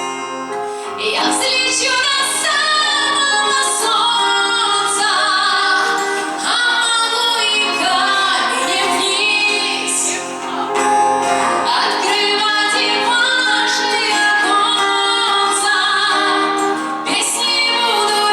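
A woman singing over musical accompaniment, her voice gliding between long held notes.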